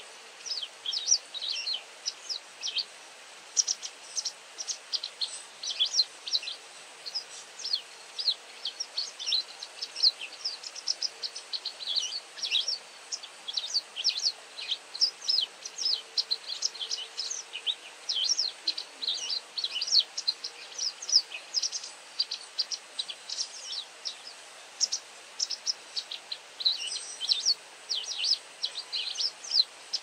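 White wagtail (black-backed Japanese race, Motacilla alba lugens) calling almost without pause: runs of short, sharp, high-pitched chirps, several a second, broken by brief gaps.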